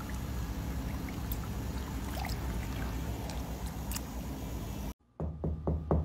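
Koi pond: gentle water noise with a few small splashes and slurps as the fish mouth at the surface, over a steady low rumble. About five seconds in it cuts to quick knocking on a wooden door, several raps in a row.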